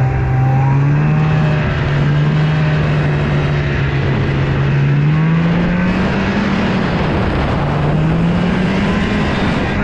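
Snowmobile engine running steadily, its pitch rising a little about halfway through and then holding.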